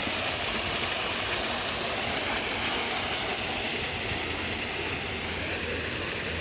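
Creek water rushing over rocks, a steady hiss.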